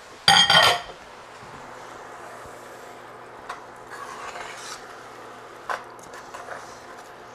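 An emptied metal tin can clatters and rings as it is set down in a metal sink about half a second in. Then a metal spoon stirs lentils and diced tomatoes in an enamelled cast-iron pot, with a few light clinks and scrapes against the pot.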